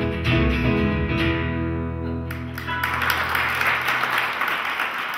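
Acoustic guitar and Roland FP-7 digital piano playing the last notes of a song and ending on a held chord that fades out. About three seconds in, an audience starts applauding.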